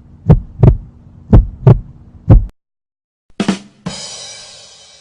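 Heartbeat sound effect: paired low thumps about once a second, stopping about two and a half seconds in. After a short pause, two quick drum hits and a cymbal crash ring out and fade, a "ba-dum-tss" rimshot.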